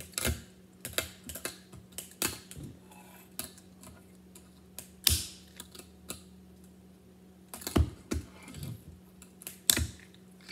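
Tech Deck fingerboard clacking on a stone countertop during finger tricks: irregular sharp clicks and taps of the small board and its plastic wheels hitting and rolling on the counter, with three louder knocks from landings spread through.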